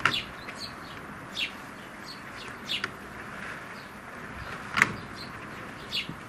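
House sparrows chirping: short, separate chirps about once a second, the loudest about five seconds in, over a steady background hiss.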